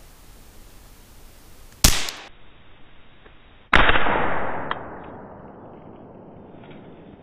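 Two gunshots from a scoped hunting gun, about two seconds apart, each a sharp crack; the second rings on and fades over about a second and a half.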